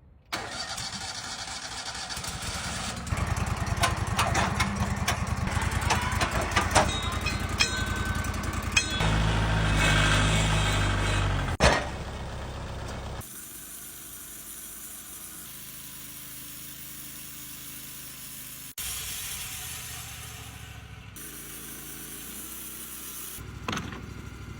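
Machinery of a Wood-Mizer band sawmill and a Kubota tractor running, in several clips cut together. The first half is louder and full of sharp cracks and knocks, with a surge of steady engine tone about ten seconds in; after a sudden cut it changes to a quieter, steadier engine running.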